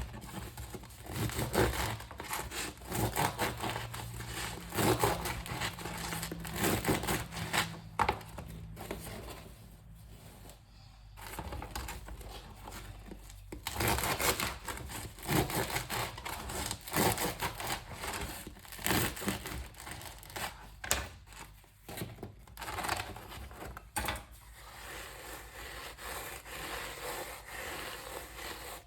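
The crust of a fresh French baguette crackling and crunching in dense, irregular bursts as the loaf is broken and torn.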